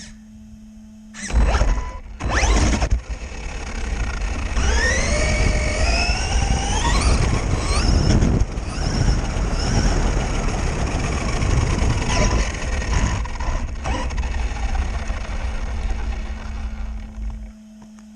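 Quantum Flux RC car's brushless electric motor at full throttle: a couple of short bursts, then a whine rising steeply in pitch as the car accelerates toward top speed, with running noise from the car until it stops shortly before the end.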